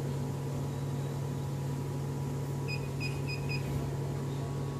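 Picosecond tattoo-removal laser unit giving a steady low hum, with four quick high beeps from its touchscreen about three seconds in as its settings are tapped.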